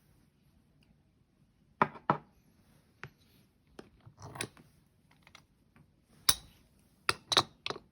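Sharp, scattered clicks and taps of a hand coffee grinder's crank handle and wooden knob being handled and fitted together, with a quick run of several clicks near the end.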